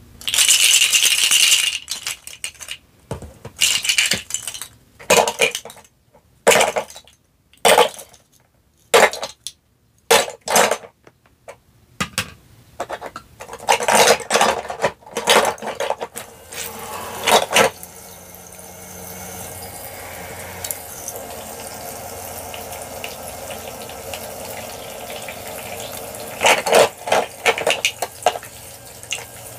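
Plastic toy dishes and cups clattering and knocking as they are set into a toy sink's dish rack. About two-thirds through, the toy sink's faucet starts running a steady stream of water, and near the end a few more plastic knocks come as toy food pieces go into the basin.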